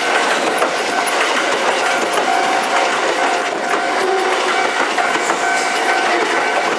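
Kintetsu electric trains passing over a level crossing, wheels clattering over the rail joints, with a steady ringing tone from the crossing's warning signal.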